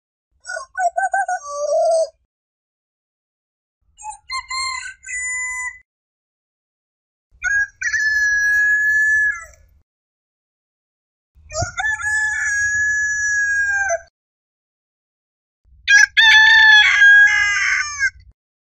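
Rooster crowing: five separate cock-a-doodle-doo crows, each about two seconds long, a couple of seconds apart with silence between.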